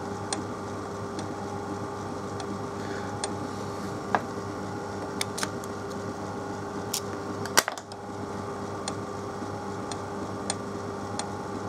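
Light, irregular metal clicks and taps as a micrometer is handled against a lathe boring bar to set the tool tip, with one louder click about seven and a half seconds in. A steady low workshop hum runs underneath.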